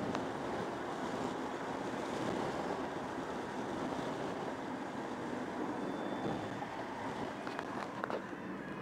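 Steady wind noise through an open car window, mixed with the road noise of a car driving at speed. A few light knocks near the end.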